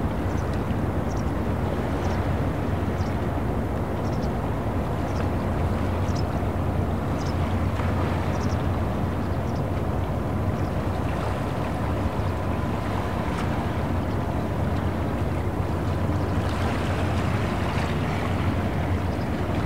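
Boat engine droning low and steady across harbour water, with water lapping and small light splashes about once a second. A louder rush of water swells near the end.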